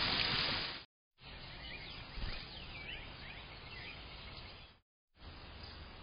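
Steady hiss of rain that cuts off abruptly, then after a brief silence birds chirping, several short whistled chirps over quiet outdoor background noise.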